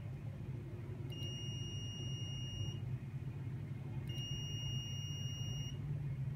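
Venus Viva skin-treatment device beeping as its applicator is held to the skin: two long steady high beeps, each about a second and a half, about three seconds apart, with a steady low hum beneath.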